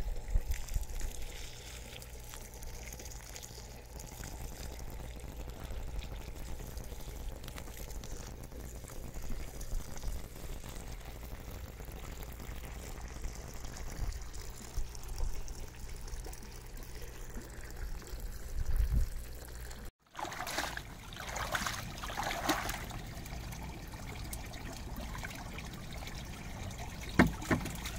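Water trickling steadily from an open garden hose into mulch. After about 20 seconds it changes to water sloshing and splashing as a bucket of water is tipped into a pool.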